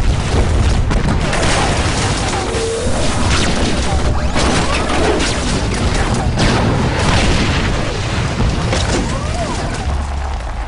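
Battle sound effects: explosions and booms over a constant low rumble, with music mixed in.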